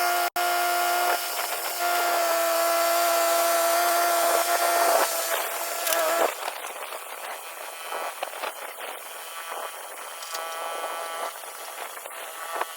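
Woodland Mills HM126 portable bandsaw mill running while sawing pine. A steady high whine lasts about six seconds, then gives way to a quieter, rougher running sound.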